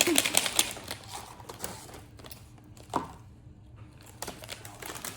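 Rapid crinkling and crackling of food packaging: a fries seasoning packet being handled and pulled at, which will not tear open. It is busiest in the first two seconds, then quieter, with a single sharp tap about three seconds in.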